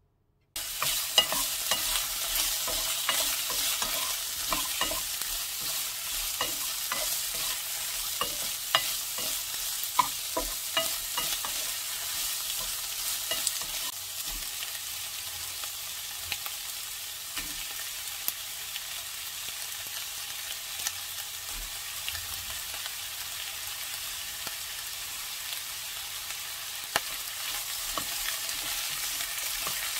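Sliced onion, carrot and fried fish cakes sizzling as they are stir-fried in a nonstick frying pan, with a wooden spatula scraping and tapping against the pan. The sizzling starts suddenly about half a second in, and the spatula clicks are busiest over the first dozen seconds.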